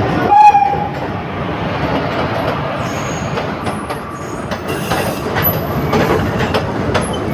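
Passenger train moving past along a station platform: a steady rumble with its wheels clattering over the rail joints. A short loud tone sounds about half a second in, and thin high wheel squeals come later.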